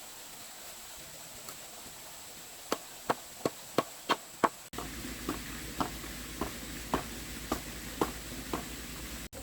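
Repeated chopping strikes of a tool on wood. First comes a quick run of six sharp blows, about three a second. Then, after a sudden cut, a slower series of about eight duller blows, roughly two a second.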